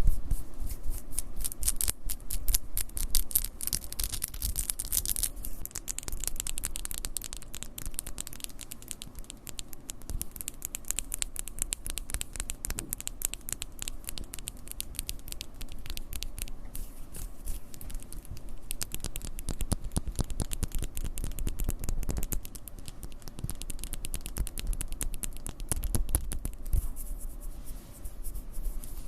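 Close-miked ASMR scratching: dense, rapid crackling and scratching clicks, brighter and hissier for the first five seconds or so, then softer.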